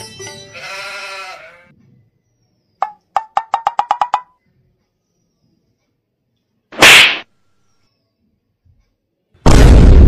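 A woman sneezing twice: a short sneeze about seven seconds in, then a longer, louder one near the end. Before them, a short musical sound fades out in the first two seconds, followed by a quick run of about nine pitched ticks that speed up.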